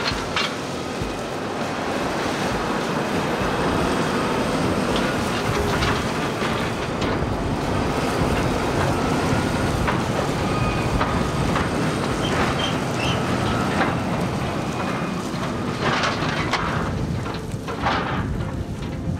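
JCB tractor engine running steadily, towing a bale chaser trailer that rattles over stubble. There are bursts of clanking from the chaser's loading arm and trailer, loudest near the end, as big square straw bales are picked up and stacked.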